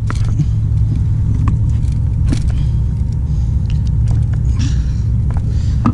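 Light metallic clicks and a brief rattle of a fishing lure's hooks and hardware as they are worked loose from a barracuda's mouth, over a steady low rumble.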